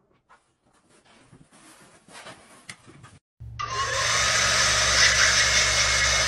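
A vacuum cleaner starts abruptly about three seconds in and runs loudly and steadily, a rushing of air over a low motor hum. Before it there are only faint rustles.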